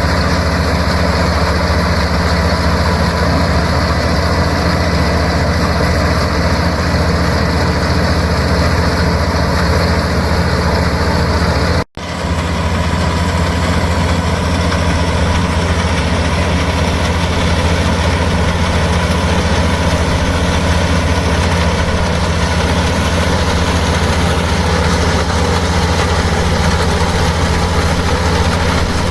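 Rice harvesting machine's engine running at a steady, unchanging speed, with a low drone. The sound cuts out for an instant about twelve seconds in, then carries on the same.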